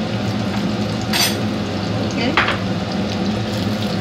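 Eggs frying in shallow oil in a nonstick pan, the oil sizzling steadily, with two brief louder crackles about one and two and a half seconds in.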